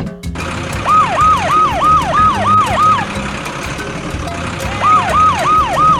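A siren sounding in quick yelps, each a short rise and fall in pitch, about three a second, in two runs with a pause of nearly two seconds between them.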